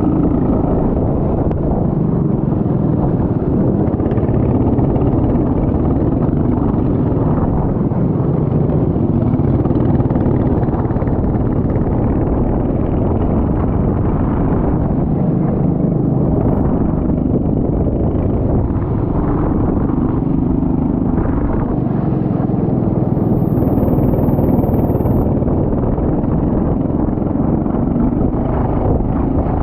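Kart engine running hard on track, its pitch rising and falling as it accelerates out of corners and backs off into them.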